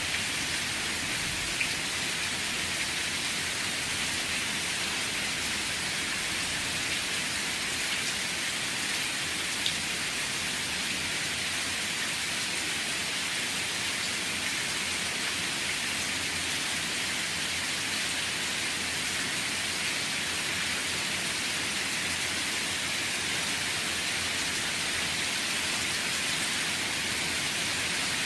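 Steady rain falling, an even hiss with an occasional louder drop ticking out of it.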